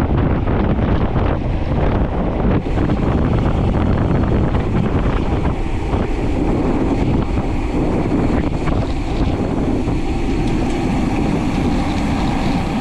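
Steady, loud wind noise buffeting the microphone of an action camera on a moving bicycle.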